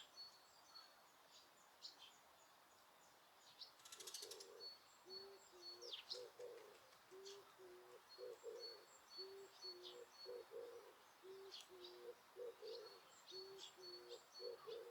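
Small songbirds chirping thin and high throughout. From about four seconds in, a dove coos in a low phrase that repeats about once a second. A short rattling burst comes just as the cooing begins.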